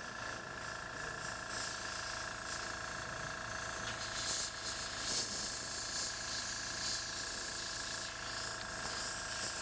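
Airbrush blowing air in repeated hissing spurts, pushing wet paint across the surface, over a steady faint hum.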